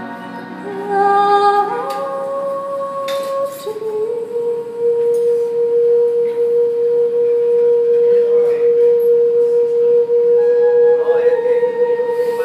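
A woman singing solo into a handheld microphone: a few short notes stepping in pitch, then one long note held steady for about eight seconds from about four seconds in.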